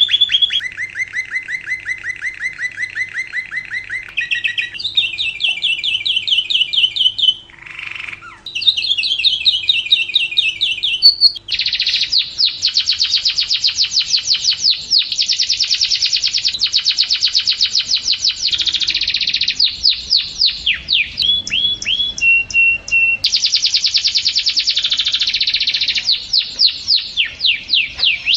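Lovebird song: long, fast trills of rapidly repeated chirps. The first few trills change pitch from one to the next, and a denser, nearly continuous chatter takes over about eleven seconds in, broken only by a couple of short pauses.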